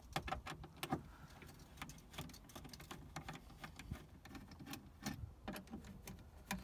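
Hand screwdriver backing out the Phillips screws that hold a car door speaker, with faint, irregular clicks and ticks of the tip, screws and plastic.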